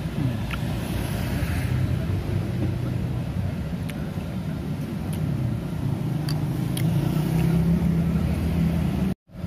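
Motor vehicle engine running close by in street traffic, its low drone drifting up and down in pitch and growing louder late on. A few light clinks of a metal spoon against a ceramic bowl come through, and the sound drops out briefly near the end.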